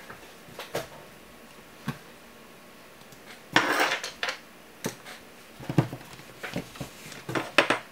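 Small hard objects being handled: scattered clicks and light knocks, with a rough scraping sound lasting under a second about three and a half seconds in and a cluster of clicks near the end.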